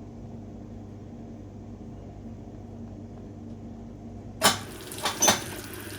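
Hoover 800RL top-loading washing machine humming steadily. About four and a half seconds in comes a loud clunk, then two quicker clicks, and a hiss of water starts as the machine changes over to its rinse fill.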